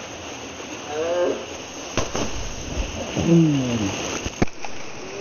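Steady rush of a small waterfall under people's long, falling cries, with two sharp knocks a couple of seconds apart.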